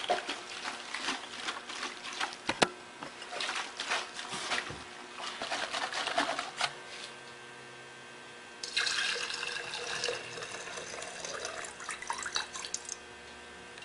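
Fresh gasoline sloshing inside a plastic lawnmower fuel tank as it is shaken to rinse out grass shavings and dirt. About nine seconds in, the rinse gas pours out of the tank into a glass jar for about four seconds.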